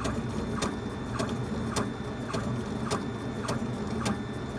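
Laser engraver running a burn on a wooden faceplate: a steady hum under a tick that comes a little under twice a second as the head makes its passes.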